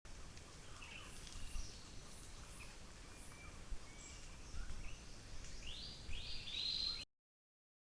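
Forest ambience picked up by a trail camera's microphone: scattered bird chirps and whistles over a low rumble, with three loud buzzy rising calls near the end. The sound cuts off suddenly about seven seconds in.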